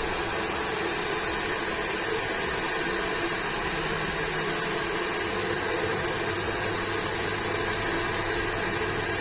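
Induction cooker running with a pot of water on it: a steady, even whooshing hiss, like its cooling fan running.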